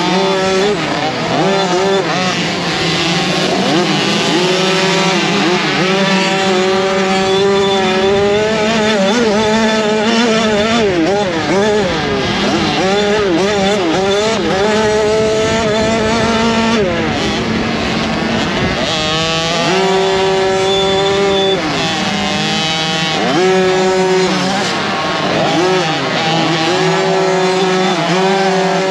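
Small two-stroke youth motocross engine heard from an onboard camera on the bike, revving up and down as the rider works the throttle and shifts through the ruts, with other bikes' engines close by. The pitch drops away briefly in the middle, then picks up again.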